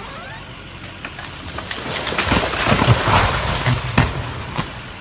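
A tree coming down: leaves and branches rushing and snapping, swelling to a peak about three seconds in, then fading.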